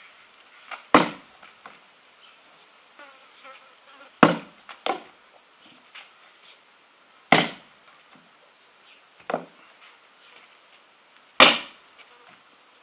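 Axe chopping dry wood on a block: four heavy strikes a few seconds apart, with a few lighter knocks between them.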